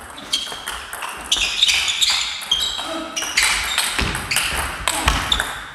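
Table tennis rally: the plastic ball clicking rapidly and irregularly off bats and table, each hit with a short ringing ping, in a reverberant sports hall. Two heavier thuds come about four and five seconds in.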